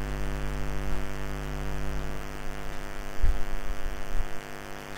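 Steady electrical mains hum, with the soft wiping of a duster across a whiteboard and a low thump a little past three seconds in.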